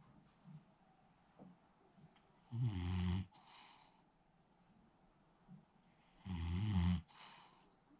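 French bulldog snoring in its sleep: two loud snores about four seconds apart, each followed by a softer breath.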